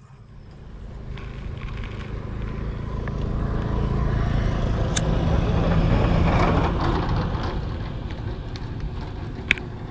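An engine passing by: it grows steadily louder for about six seconds, then fades away. Two sharp clicks sound over it, one midway and one near the end.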